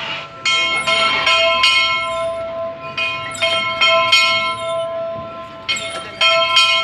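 Church bell rung rapidly in bursts of about three or four strokes a second, with short lulls between bursts and the bell's tone ringing on between strikes.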